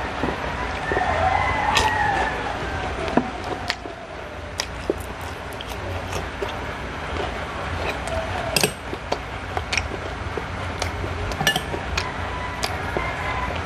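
Close-up eating sounds of crispy fried galunggong (round scad) being chewed by hand-fed mouthfuls: wet mouth clicks, smacks and crunchy bites scattered irregularly over a low steady hum. A drawn-out wavering call sounds in the background a second or two in.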